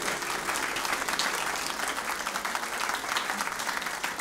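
A theatre audience applauding steadily at the end of a song, as the last notes of a classical guitar die away at the very start.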